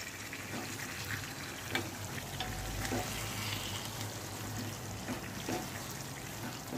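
Chicken pieces in thick curry gravy simmering in a pot while a spatula stirs them, with a soft wet sizzle and a few light clicks of the spatula against the pot.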